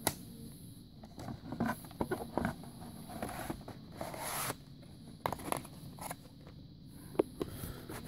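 Handling noise from a VHS cassette and its case: scattered light clicks and short scraping rustles, with a sharper click right at the start and a longer scrape about four seconds in.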